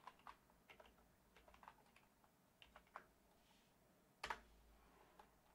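Faint typing on a computer keyboard: a run of quick, light keystrokes, with one louder keystroke about four seconds in.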